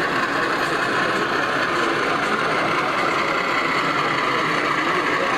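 Model diesel locomotive running along a layout's track: a steady mechanical whirring of its motor and wheels, with a few faint clicks.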